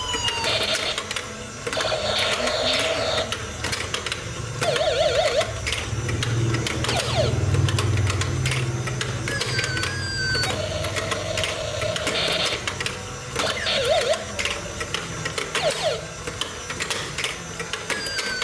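Battery-operated plastic whack-a-mole toy being played: a plastic hammer taps the pop-up moles in quick clicks, over the toy's short electronic chirps and falling-tone sound effects. A low hum from the toy's mechanism runs through the middle.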